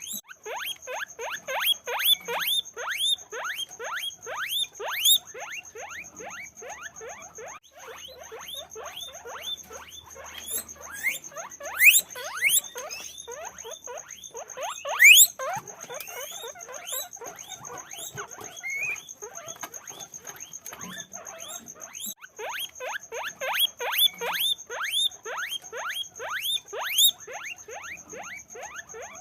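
Guinea pigs squeaking continuously: many short, quick squeaks that fall in pitch, several a second, with a few louder, sharper ones about twelve and fifteen seconds in. A steady thin high whine runs underneath.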